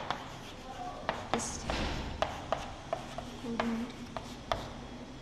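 Chalk writing on a blackboard: irregular sharp taps as the chalk strikes the board, with scratchy strokes between them.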